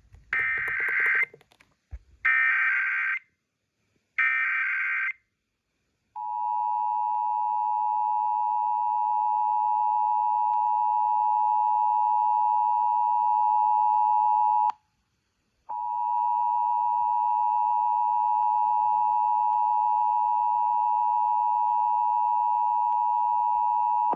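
Emergency Alert System test: three one-second bursts of the warbling digital SAME header code, then the two-tone EAS attention signal (853 and 960 Hz). The attention signal holds steady for about eight seconds, breaks off for a second, then sounds again for about eight seconds.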